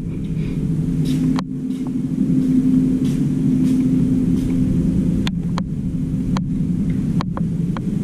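A motor running with a steady low hum, with a few sharp clicks over it.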